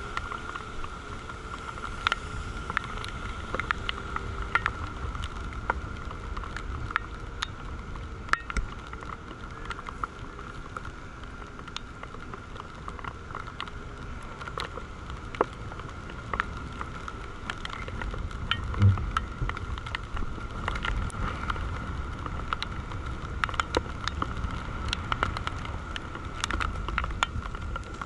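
Wind rushing over a camera microphone on a parasail harness in flight, a low rumble with a steady high whine and many irregular clicks and taps from the rig. A louder thump comes about 19 seconds in.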